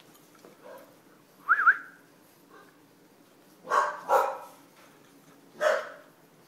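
English bulldog puppies yapping in play: a short high-pitched squeal about a second and a half in, then three short barks, two close together and a third near the end.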